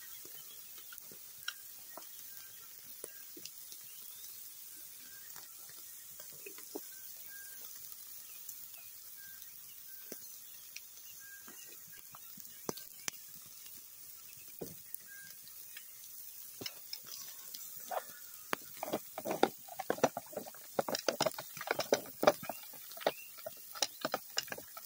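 Pork chops sizzling on a metal grill grate over a campfire: a steady hiss with scattered pops. After about two-thirds of the way through, the crackling and popping becomes much louder and denser.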